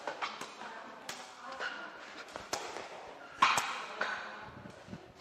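Sepak takraw ball being kicked back and forth, a series of sharp smacks at irregular intervals ringing in a reverberant hall, the loudest a little past halfway.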